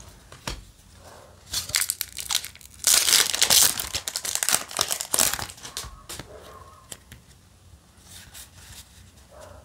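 Foil booster pack of Yu-Gi-Oh! Synchro Storm cards being torn open, with crinkling and ripping of the wrapper, loudest about three seconds in. Softer rustling of the cards being handled follows.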